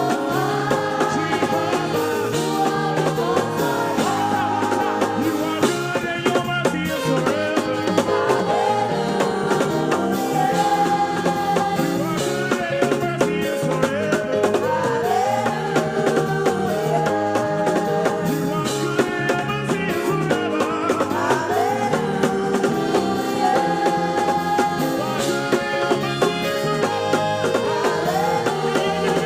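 Upbeat gospel praise music: singing over a band with a steady drum beat.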